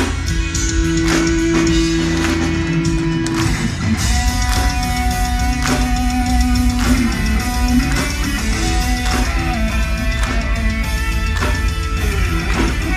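Live heavy metal band playing an electric guitar solo over dense, fast drums and bass. The lead guitar holds long sustained notes, one in the first few seconds and another from about four to seven seconds in.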